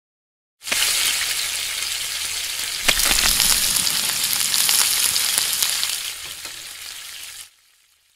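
Frying sizzle, as of food on a hot grill pan: a dense hiss with crackling that starts abruptly about a second in. A sharp click comes about three seconds in. The sizzle tapers off and cuts out shortly before the end. In a stop-motion magnet 'cooking' scene this is a dubbed sound effect, not real food cooking.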